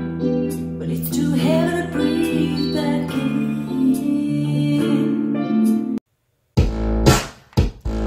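Music played through a pair of small bookshelf speakers driven by a Lepai LP1601s amplifier: a guitar-led song. About six seconds in it cuts off, and half a second later a different track with hard-hitting beats and deep bass starts on Klipsch tower speakers.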